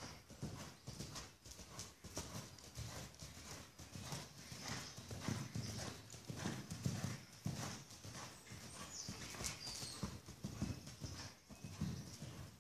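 Hoofbeats of a paint cross gelding cantering under saddle on soft dirt arena footing: a run of dull, rhythmic thuds.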